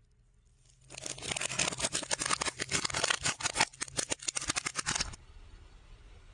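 Dense crunching and crackling with many sharp snaps, starting about a second in and lasting about four seconds: something being crushed.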